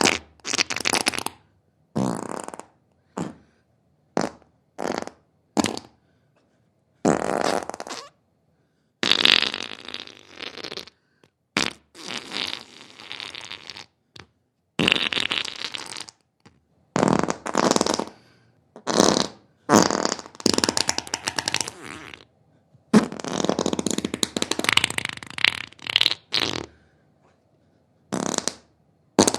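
A series of human farts, about a dozen and a half separate ones: some short pops, others drawn out for two or three seconds, with brief silences between.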